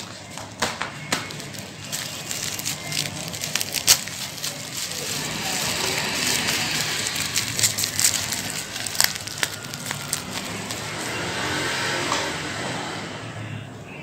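Plastic bubble wrap rustling and crackling as it is handled and unwrapped, with scattered sharp clicks, the loudest about four seconds in.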